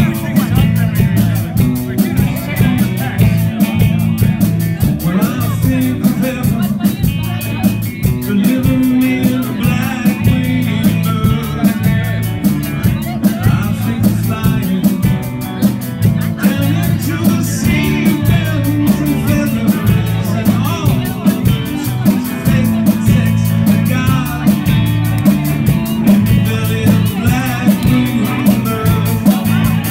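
Rock band playing live, with drums, electric guitars and a man singing into a microphone over the PA, on a steady beat.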